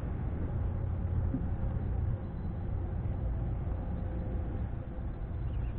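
Steady low rumble of outdoor background noise, a little quieter after about two seconds.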